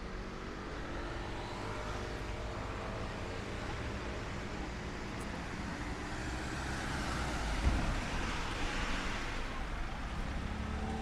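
Street traffic: a steady hum of road noise, with a vehicle passing close and growing loudest about eight seconds in, where there is a brief knock, before easing off.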